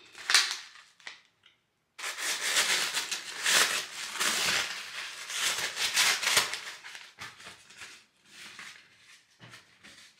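Packaging rustling and crinkling as a box of hair wraps is opened and a fabric wrap is pulled out of it. The rustling is loudest for a few seconds in the middle, then turns into lighter handling of the cloth.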